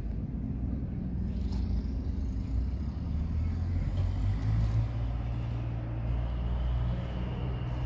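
Low, steady engine rumble of a motor vehicle running nearby, swelling a little partway through.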